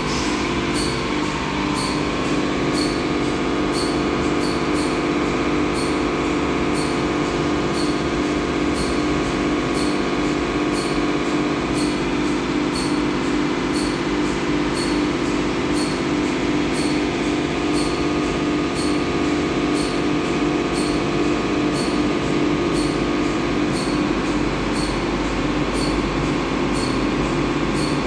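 EVO 360 Softline rollover car wash at work, heard from inside the car: its spinning brush and water spray make a steady mechanical hum with an even, quick pulsing and a light ticking about twice a second.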